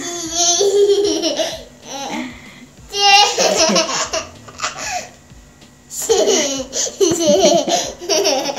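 Young child laughing in three bouts, about three seconds apart.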